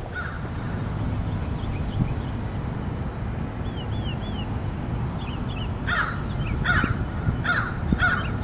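Bird calls: four loud calls in a row, a little under a second apart, starting about six seconds in, with fainter short high chirps earlier, over a steady low rumble.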